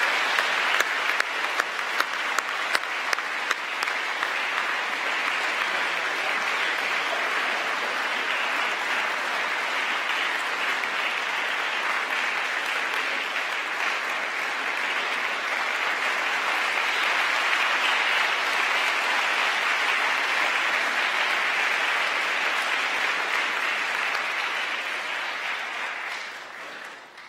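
A large audience applauding, a sustained crowd of hand claps that sets in abruptly, holds steady for about 26 seconds and dies away near the end. A few sharp, close-by claps stand out over the first few seconds.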